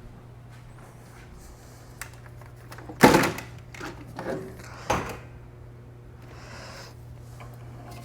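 A few knocks and rattles of handling: a loud knock about three seconds in, a lighter clatter after it, and another sharp knock near five seconds, over a low steady hum.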